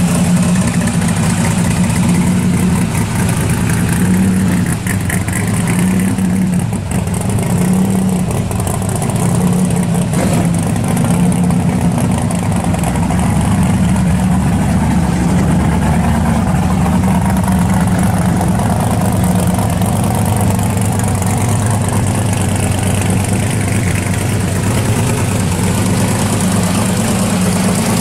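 Hot rod engine idling, a steady, slightly pulsing exhaust note.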